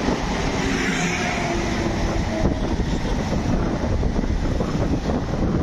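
Pesa Dart ED161 electric multiple unit rolling along the platform: a steady rumble and rush of wheels and moving carriages, with faint short whining tones in the first couple of seconds.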